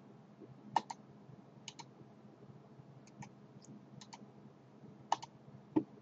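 Computer mouse button clicking, a series of short sharp clicks, mostly in quick pairs about once a second, over a faint low hum.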